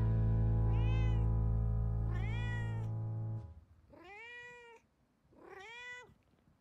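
A domestic cat meowing four times, about a second and a half apart. Each meow rises and then falls in pitch, and the last two are the clearest.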